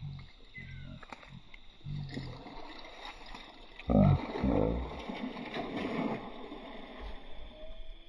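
A weighted cast net hits the river surface about four seconds in with a sudden splash, followed by a couple of seconds of rushing, spattering water as the net and its sinkers settle.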